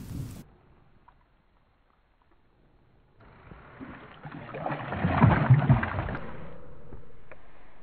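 After a few seconds of near silence, water sloshes and splashes as a trout is released from a hand in shallow water and kicks away; the splashing swells about three seconds in, is loudest just past the middle, then settles to a lower wash.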